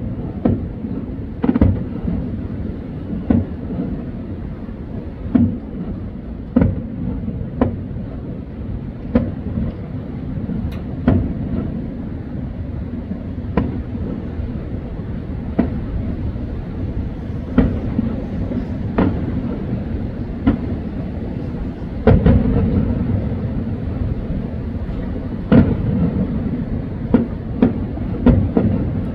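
Fireworks show bursting, a sharp bang every second or so, with a louder run of bangs about two-thirds of the way in, over a steady low rumble.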